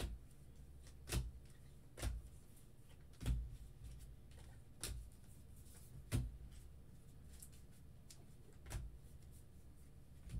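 Baseball trading cards being sorted by hand and set down onto stacks on a tabletop: about seven short taps at uneven intervals of one to two seconds, with faint card handling between.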